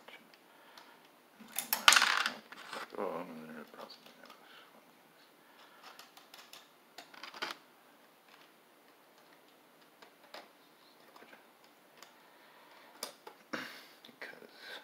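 Small clicks, taps and scrapes of acrylic panels, standoffs and screws being handled and fitted by hand on a workbench. A louder rasping scrape comes about two seconds in and another near the end.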